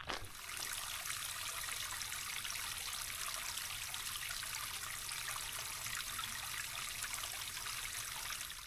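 Running water, a steady rush that starts and stops abruptly.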